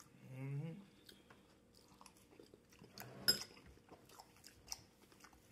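A person chewing a mouthful of cooked broccoli and carrots with melted cheese and fried onions, heard close up as soft wet mouth clicks and light crunches. A short hummed 'mm' comes at the start, and there is one sharper, louder click about three seconds in.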